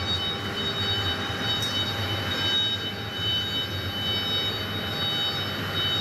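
Steady factory machinery drone with several high, steady whining tones running through it, and a light click about a second and a half in.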